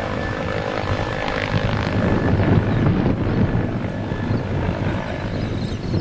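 Bell 412 twin-turbine helicopter running, a steady low rotor throb with rushing noise over it.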